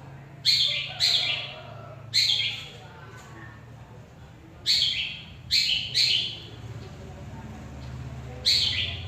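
Long-tailed shrike (cendet) giving a series of sharp, harsh calls, seven in all, each starting suddenly and fading quickly, with irregular pauses between them.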